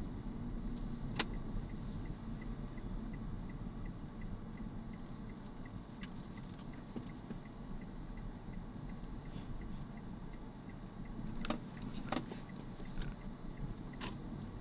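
Steady car engine and road rumble heard inside the cabin. A turn-signal indicator ticks evenly, about three ticks a second, for the first several seconds as the car turns a corner. A few sharp clicks or knocks come through, two close together about eleven to twelve seconds in.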